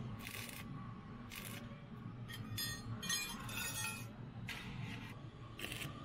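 Stick (arc) welding on a steel bird-cage frame: a series of short bursts of arc crackle, each well under a second, as a bracket is tack-welded on. Some high ringing tones mix in around the middle.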